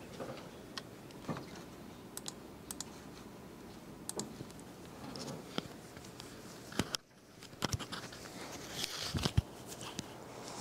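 Handling noise of a clip-on lapel microphone being fastened to clothing: irregular sharp clicks and soft rustling picked up by the microphone itself. The sound drops out briefly about seven seconds in, then the clicks and rustling resume.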